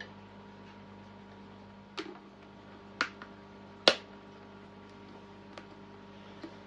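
Sharp clicks and knocks of items being handled and set down on a wooden desk: three about a second apart, the last one loudest, then two faint ticks near the end, over a faint steady hum.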